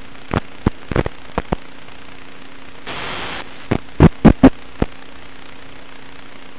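Steady hiss and hum of static from an analog FPV video link's audio channel, with about a dozen sharp crackling pops in two clusters and a half-second surge of louder static about three seconds in.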